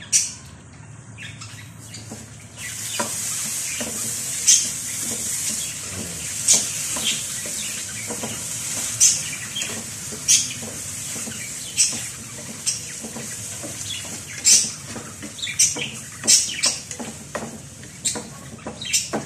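Sisig mixture sizzling in a nonstick frying pan as it cooks down with mayonnaise, while a spatula stirs it, with sharp taps and scrapes of the spatula against the pan. The steady sizzle picks up about two and a half seconds in.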